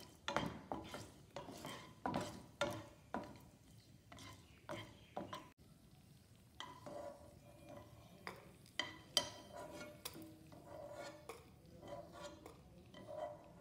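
Spatula stirring and scraping cashews in a little oil in a nonstick frying pan, then, after a short pause about halfway, a steel spoon scraping the pan and clinking against a steel bowl as the fried cashews are lifted out: light, irregular scrapes and clinks.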